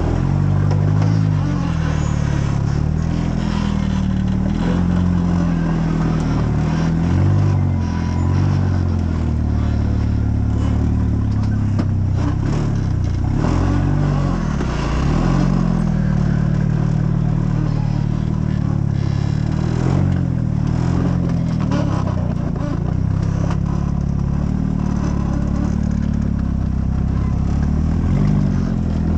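Off-road rock-crawler engine running, its pitch rising and falling as the revs change, with scattered knocks and clatter from the vehicle.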